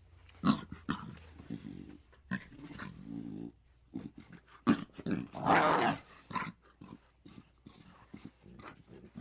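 An animal's short, irregular vocal sounds, with a longer harsh, noisy one about five and a half seconds in.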